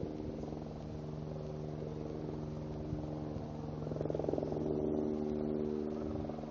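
An engine running steadily at an even pitch, a low hum that swells a little about four seconds in.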